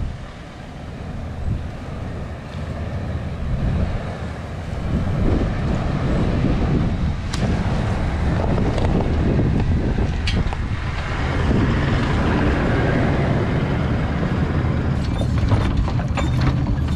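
Toyota LandCruiser 70 Series four-wheel drive towing a camper trailer, driving slowly down a rocky dirt track and getting louder as it approaches. Its tyres crunch over stones, with a few sharp clicks. Near the end there is a close rattle and clicking of gravel and suspension from under the vehicle.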